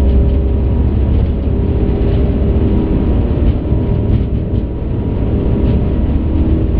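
Steady, loud rumble of an Airbus A380 on its takeoff roll, heard from the cockpit: engine and runway noise with a faint steady whine and a few light ticks.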